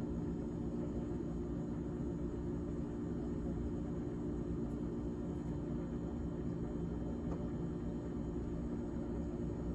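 GE refrigerator running: a steady, unchanging hum made of several low tones over a low rumble.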